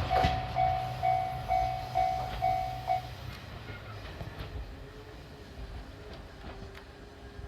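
Level-crossing warning bell ringing about twice a second over the low rumble of a passing diesel train. The bell stops about three seconds in, and the train's rumble fades away after it.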